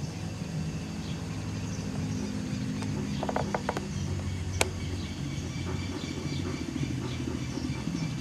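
Gyroplane's Rotax 914 turbo engine and pusher propeller running as it descends and lands on grass, a steady drone whose pitch shifts about halfway through. A few faint clicks come a little past the middle, then one sharp click.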